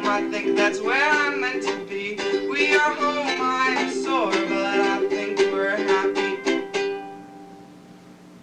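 Music: the song's closing bars, a plucked string accompaniment under a gliding melody line. It rings out and fades about seven seconds in, as the track ends.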